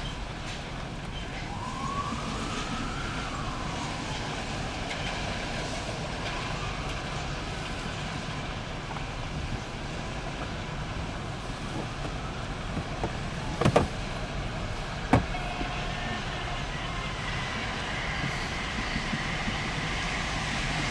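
Empty autorack freight cars rolling past, a steady noise of wheels on rail, with a faint tone rising and falling a couple of seconds in. Two sharp clanks about a second and a half apart, a little past the middle, are the loudest sounds.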